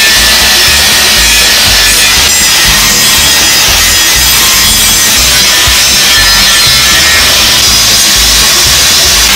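Handheld angle grinder with a grinding disc working over the steel of a rusty cleaver blade to take off rust: a loud, steady grinding hiss with no breaks.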